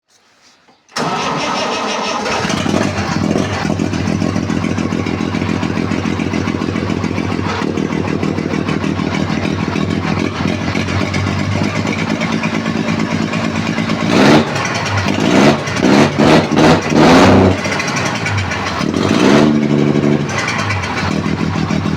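Massey Ferguson 295 tractor's diesel engine running steadily, then blipped up in revs several times in quick succession near the end, each time dropping back to the steady run.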